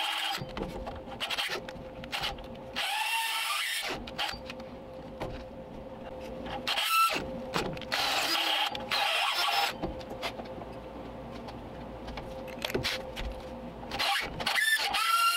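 Cordless drill spinning a long carbide burr through a rusted-in broken stud in a tapered shock mount, grinding the metal out. The drill starts and stops several times, with a steady motor hum under the cutting.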